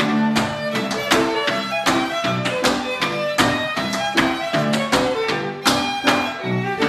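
Fiddle and electronic keyboard playing a hornpipe, with a stepdancer's shoes tapping on a wooden board in time, sharp clicks several times a second.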